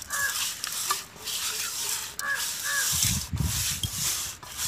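Hands rubbing and turning wet raw fish steaks in a steel bowl, a steady wet rubbing with a few dull bumps about three seconds in. A bird calls in short repeated notes in the background.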